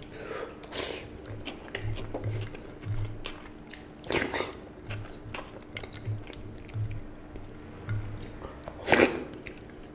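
A person eating watery fermented rice (panta bhat) by hand: chewing and soft wet squishes. Two loud slurps come as handfuls go to the mouth, about four seconds in and near the end.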